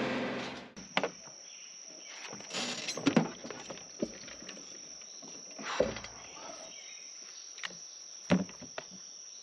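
John Deere compact tractor's diesel engine dies away in the first second, shut off. It leaves a steady high insect drone and scattered sharp clicks and knocks of someone moving about on the tractor seat.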